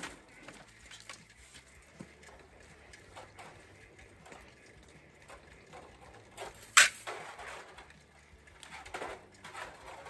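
Handling noise from tools and wire in a metal utility cart: light rattles and knocks, with one sharp loud clack about seven seconds in.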